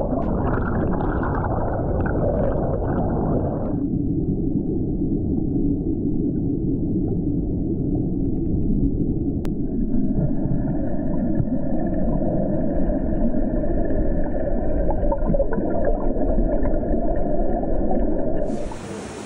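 Rushing fishway water heard underwater: a muffled, steady churning rumble. Just before the end it gives way to a quieter, brighter hiss of flowing water heard in open air.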